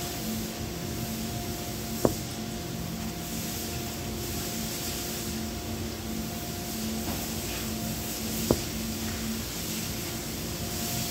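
Cloth shop rag rubbing and wiping small metal parts of a pneumatic air gun, over a steady background hum. Two sharp clicks stand out, about two seconds in and again about eight and a half seconds in.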